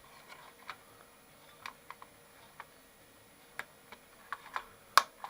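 Scattered small clicks and taps of a process calibrator's parts being handled and fitted back on, with one sharper click about five seconds in.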